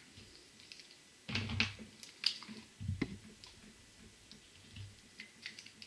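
Whiteboard markers being handled and drawn with: a few short clicks and scrapes as markers are swapped and a felt-tip marker rubs on the board, the largest a little over a second in and around two and three seconds in.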